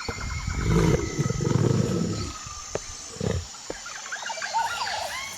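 A big cat roaring: a loud, rough, low roar lasting about two seconds, then a shorter grunt. Birds chirp near the end.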